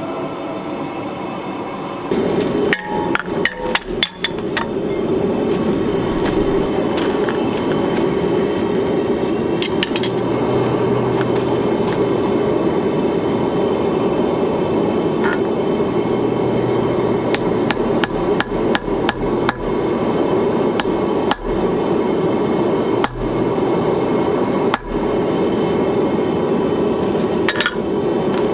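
Hammering on hot leaf-spring steel at the anvil, forging a small Thor's-hammer fire striker: a long, steady run of blows with a few brief breaks.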